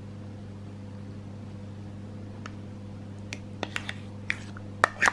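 Steady low hum underneath, with light clicks and taps of a spoon and measuring cup knocking against a ceramic bowl as plain yogurt is scooped out, starting about halfway through and loudest near the end.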